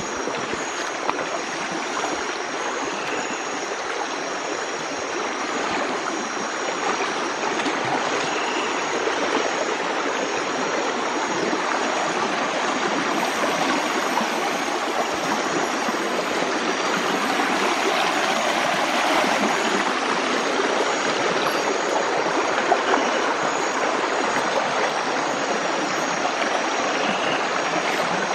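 Steady rush of a shallow rocky river with a current, water washing and gurgling over stones without a break.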